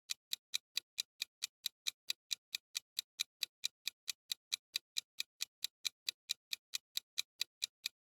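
Countdown-timer sound effect: a clock ticking quickly and evenly, about six ticks a second, while the quiz gives time to guess.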